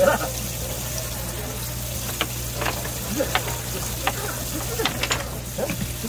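Steady hiss of running or bubbling water over a low hum, with scattered sharp clicks and taps every half second or so.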